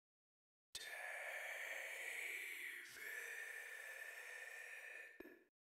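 A person's drawn-out, breathy whisper in two long parts of about two seconds each.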